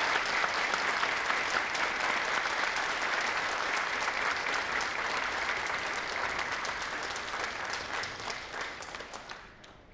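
A roomful of people applauding, steady, then fading out over the last couple of seconds.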